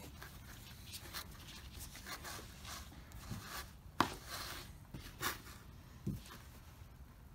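Rustling and handling as a t-shirt is taken out of the crate and unfolded: a run of short rustles, a sharp click about four seconds in and a soft knock about six seconds in.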